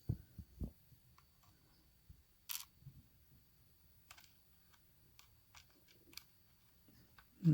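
Sparse small clicks and taps of the lock's small metal parts being handled while the pins and springs are checked, with a few soft knocks near the start and a brief scrape a couple of seconds in.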